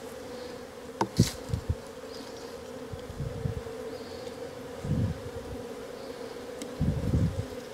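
Honeybees from an open hive buzzing in a steady, even hum, with a sharp click and a few low knocks and bumps as the wooden frames are pried apart and moved.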